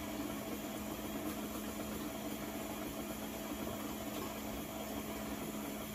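Stand mixer running steadily at low speed, a constant motor hum as the flat paddle beats creamed butter and sugar while whole eggs are added.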